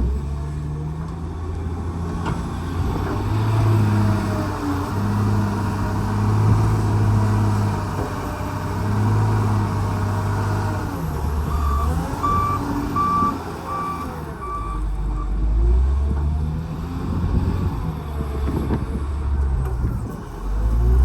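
Loader's diesel engine working under load, revving up and falling back again and again, with a reversing alarm beeping about five times near the middle.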